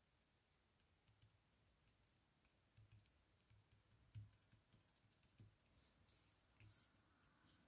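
Near silence, with faint scattered taps and ticks of fingers pressing small cut-paper pieces down onto a paper base on a wooden tabletop, the clearest tap about halfway through.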